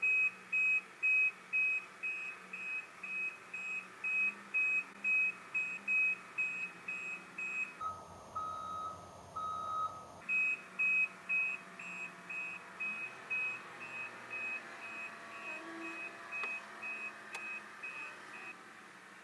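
Reversing alarm on a Caterpillar 950M wheel loader beeping steadily about twice a second as the loader backs up. The beeping fades and stops near the end, over a faint engine hum.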